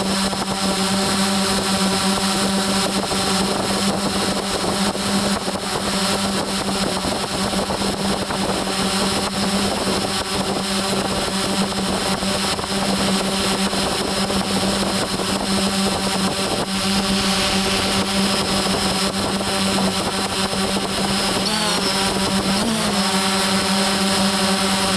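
Camera drone's electric motors and propellers humming steadily with a hiss of air. Near the end the pitch briefly dips and wavers twice as the motor speeds change.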